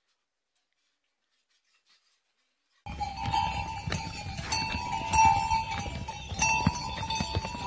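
Silence for about three seconds, then a sudden start of steadily jangling neck bells on pack animals, with scattered sharp clicks.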